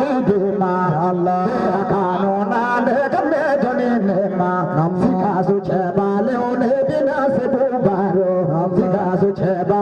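A voice singing a chant, with long held notes that waver and bend in pitch.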